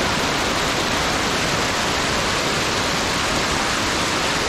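Kravica waterfalls: a steady, even rush of falling water.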